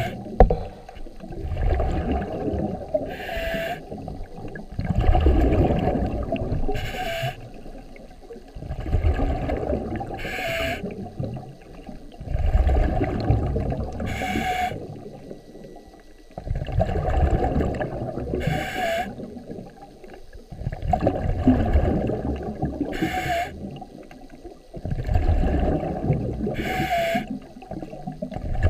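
A scuba diver breathing through a regulator underwater. About every four seconds there is a short hiss of inhalation, followed by a longer, low rumble of exhaled bubbles.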